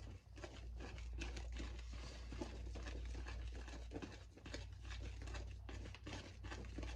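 Wire whisk mixing cake batter in a bowl: an irregular run of quick clicks and scrapes over a steady low hum.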